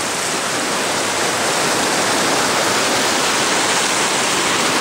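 Mountain stream cascading over rocks: a steady rush of water.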